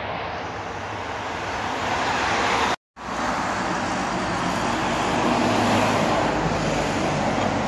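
Highway traffic with trucks passing below: a steady rush of tyre and engine noise with a low rumble that swells as vehicles go by. The sound cuts out completely for a moment about three seconds in.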